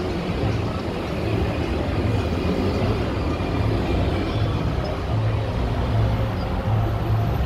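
A road vehicle moving through city traffic: a steady low engine and road rumble.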